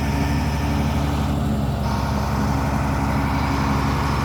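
Heavy construction machine's engine running steadily at low revs, a thin whine joining about two seconds in.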